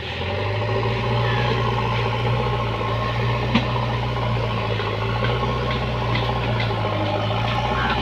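JCB backhoe loader's diesel engine running steadily as the machine pushes a load of soil with its front loader bucket; the engine picks up right at the start and then holds an even low drone.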